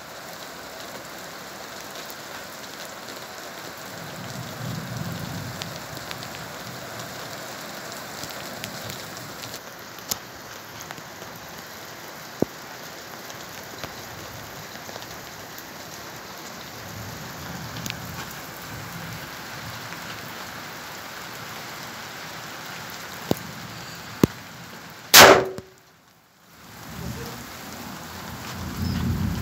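Steady hiss like rain falling, with a few faint clicks and one loud sharp bang near the end that rings briefly before the sound drops out for about a second.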